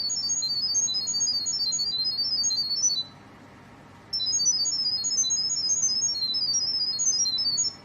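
An electronic ringtone melody of quick, high-pitched beeping notes. It plays for about three seconds, pauses for about a second, then repeats.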